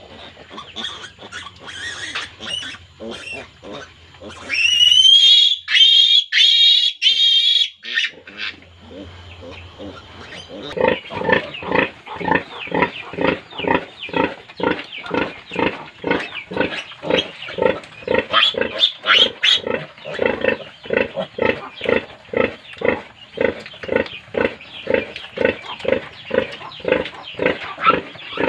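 A piglet squeals loudly and shrilly for about three seconds while held for its oral iron dose. Then the sow grunts rhythmically, about two grunts a second, as her piglets suckle.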